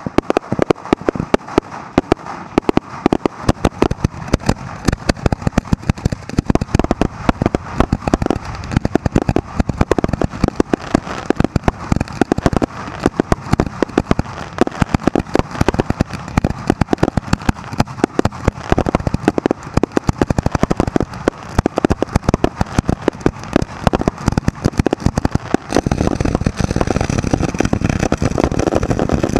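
Fireworks finale: cakes and launch tubes firing in a continuous rapid barrage, many sharp reports a second with shells bursting overhead. About 26 seconds in it thickens into a denser, heavier roar as many tubes go off at once.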